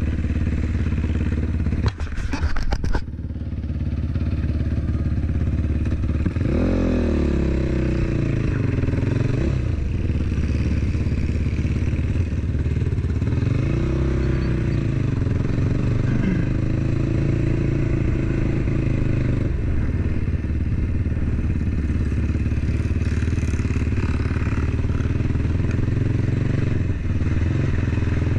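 Quad ATV engine running at low speed, its revs rising and falling about seven seconds in and again around fourteen seconds in. A quick clatter of knocks comes about two to three seconds in.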